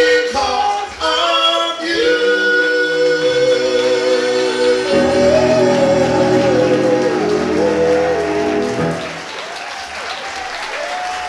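An R&B vocal group sings in close harmony, holding a long chord on steady notes, with keyboard backing. About nine seconds in the chord ends and audience applause and cheering take over.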